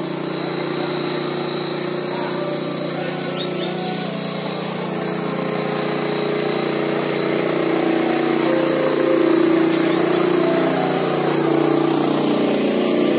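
A steady mechanical drone of a motor running, swelling slightly louder over the second half.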